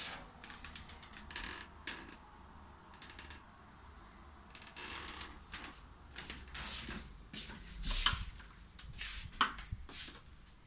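Irregular rustling and small clicks from a handheld phone being moved about, the microphone rubbed and knocked. The louder clicks are bunched in the second half.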